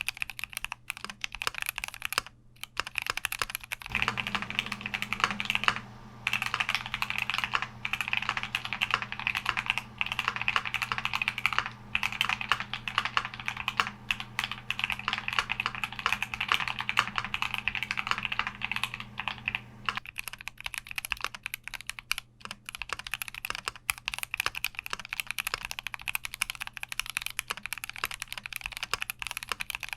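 Continuous fast typing on a Keychron Q60 mechanical keyboard fitted with switches under test, dense key clacks with a few brief pauses. A low steady hum sits under the typing from about four seconds in until about twenty seconds in.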